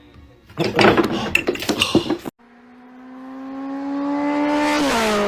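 A short burst of clattering knocks, as of hard objects rattling and knocking together. After a cut comes a steady droning tone that grows steadily louder and slides down in pitch near the end.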